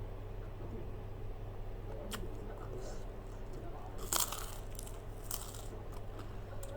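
Close-up eating: crisp bites and crunching of fried food, the loudest crunch about four seconds in and a few more just after, over a steady low hum.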